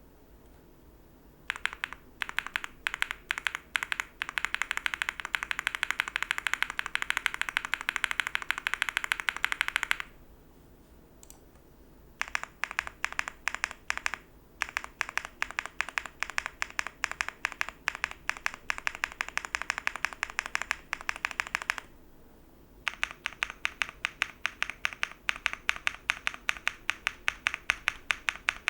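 Typing on a Leobog Hi8 mechanical keyboard with Akko Yellow Pro linear switches, run nearly stock. The keystrokes come in fast, rapid runs of crisp clacks, with three short pauses.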